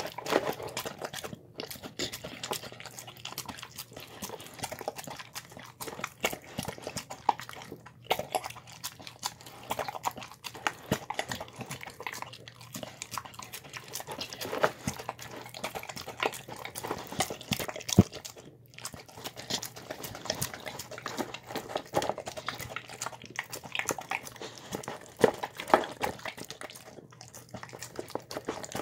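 A dog eating soft pulled pork and mashed squash and potatoes from a bowl, very close up: continuous irregular wet chewing, lapping and smacking with many small clicks.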